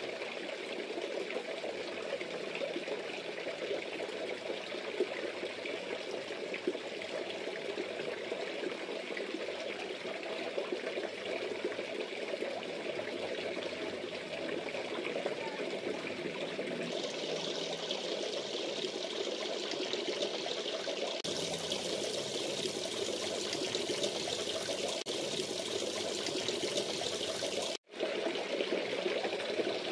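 Water splashing and trickling steadily into a fish pond, a continuous burble that turns brighter and hissier past the halfway mark and cuts out for an instant near the end.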